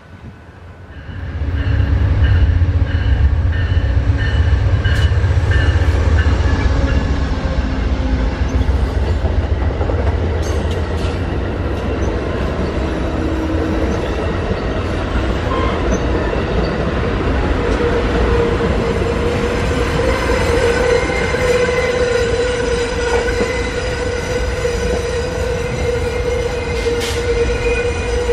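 Amtrak California Zephyr passenger train passing at speed. The diesel locomotive's deep rumble swells in suddenly about a second and a half in, then the Superliner cars roll by steadily. A metallic ringing tone from the wheels grows stronger in the second half, and a few sharp clicks come from the wheels.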